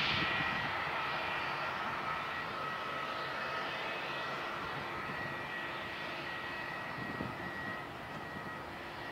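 Jet airliner's engines running, a steady whine with two high held tones over a rushing noise, easing slightly toward the end.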